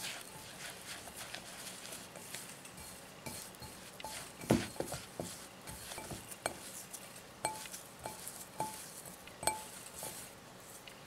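Fingers rubbing and squeezing crumble mixture of flour and oil in a glass bowl: a soft gritty rustle, with several sharp clinks as the fingers knock the glass, each leaving a short ring, the loudest about four and a half seconds in.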